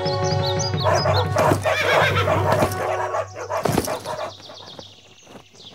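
A horse whinnying over background music. The sound dies down near the end.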